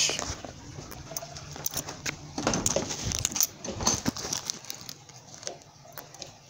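Handling noise from a phone being carried about: scattered rustling and clicks, with a few dull knocks in the middle, growing fainter toward the end.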